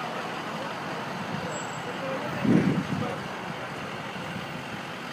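Steady city street traffic noise, with a brief louder low rumble about two and a half seconds in.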